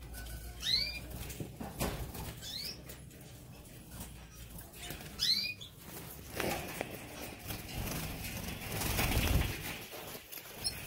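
Caged canaries fluttering and flapping their wings, with a few soft knocks as they land and a loud flurry of wingbeats near the end. A short rising-and-falling chirp call comes three times in the first half.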